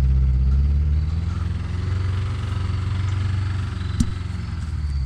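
Vehicle engine running steadily, its note easing down slightly and getting a little quieter toward the end, with one sharp click about four seconds in.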